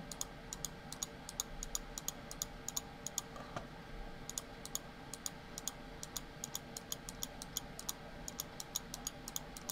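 Light computer mouse clicks, irregular and several a second, over a faint steady hum.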